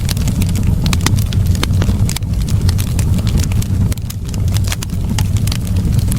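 Fire burning in a fireplace: a steady low rumble of flames with frequent sharp crackles and pops at irregular intervals.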